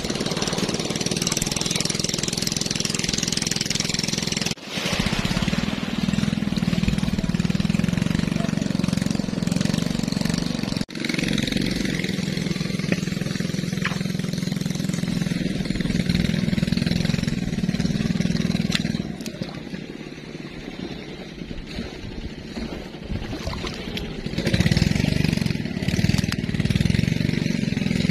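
A small engine running steadily with a low, even hum. It cuts out for an instant twice and drops quieter for a few seconds past the middle.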